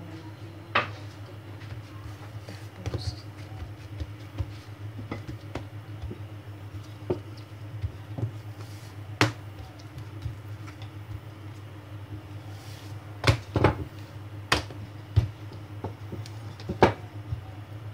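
Scattered knocks and taps as hands and a wooden rolling pin work pizza dough on a silicone mat laid on a table, with the sharpest knocks near the end. A steady low hum runs underneath.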